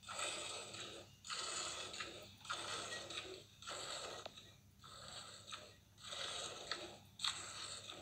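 Cow being milked by hand: streams of milk squirting from the teats into a half-filled steel bucket, a hissing spurt about once a second in a steady rhythm.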